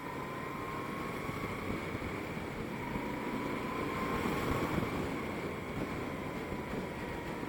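Moto Guzzi V-twin motorcycle running steadily while being ridden, its engine mixed with heavy wind and road noise on the rider's microphone.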